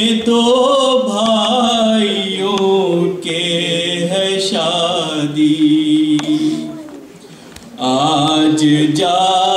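Unaccompanied voice chanting an Urdu noha, a Muharram mourning elegy, in long melismatic lines with held notes. A held note fades about seven seconds in, and the next line begins near eight seconds.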